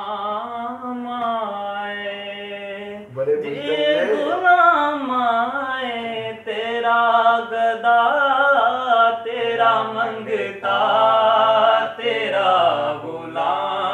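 A man singing an Urdu naat, drawing out long, ornamented held notes in several phrases with short breaks between them.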